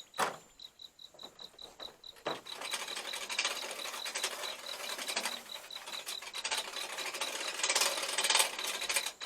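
Hand winch on a truck bed crane being cranked, its ratchet clicking rapidly for about six seconds, after a couple of sharp knocks. Crickets chirp steadily in the background.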